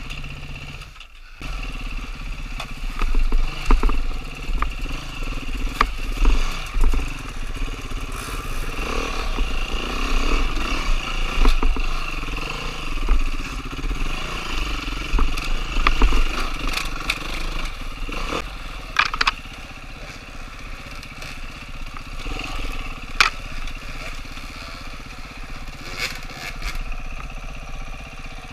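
Enduro dirt bike's engine running and revving over rough trail, with sharp knocks and clatter from the bike over rocks and roots. The engine settles lower and quieter in the last third.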